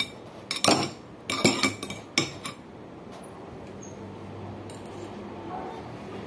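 Cutlery clinking against tableware, a quick run of sharp clinks in the first two and a half seconds, then a faint low steady hum.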